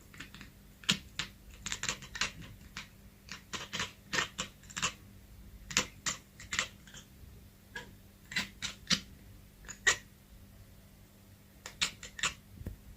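Cat chattering: quick, sharp clicking 'ek-ek-ek' sounds in several irregular runs, like typewriter keys.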